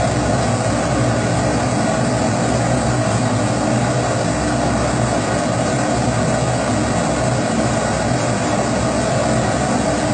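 Kerosene pressure stove (primus) burning at full pressure, giving a steady, unbroken rushing noise from its burner.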